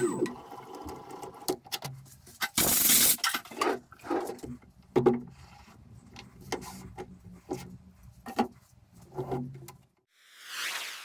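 Metal lathe winding down at the start, then scattered metal clinks, knocks and scraping from working the tool and carriage around an aluminium bar among swarf, with a loud rushing burst about two and a half seconds in. Near the end a swelling whoosh rises and fades out.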